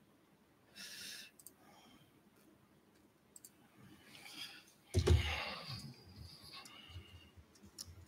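Faint scattered clicks from a laptop's keys and trackpad, picked up by a podium microphone. There is a short hiss about a second in, and a louder thump and rustle at the podium about five seconds in.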